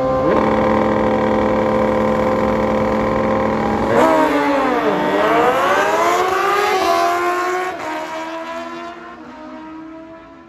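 Two sport motorcycles drag racing. Both engines are held at steady high revs on the starting line. About four seconds in they launch: the pitch dips, then climbs, with a gear change near seven seconds. The engines then fade as the bikes run away down the strip.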